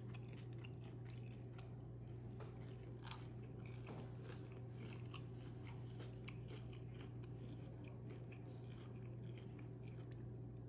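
Close-miked chewing and biting of food, with many small irregular crisp crunches and wet clicks, over a steady low hum.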